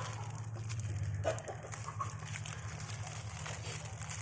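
Chickens making a couple of short clucks, about a second and two seconds in, over a steady low hum.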